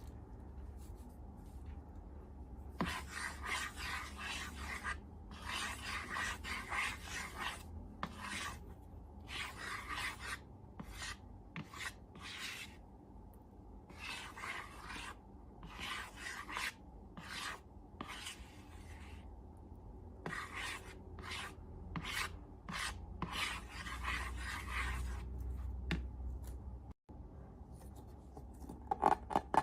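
Slime being worked by hand in a run of rubbing, squishing strokes, each lasting up to a couple of seconds, with short pauses between them.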